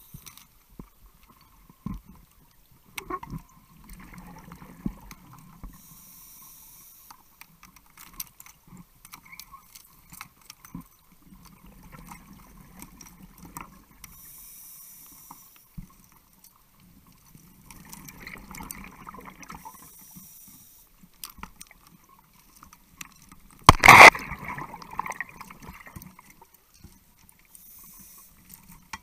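Underwater sound of a scuba diver breathing on a regulator: a short hiss of inhalation every six to eight seconds, alternating with the rumble of exhaled bubbles. Small clicks of loose rocks being shifted run throughout, and about 24 seconds in there is one loud knock.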